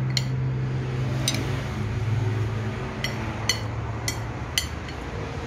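Spoon and fork clinking against a plate while eating fried rice: a handful of short, sharp clinks about a second apart, over a steady low hum.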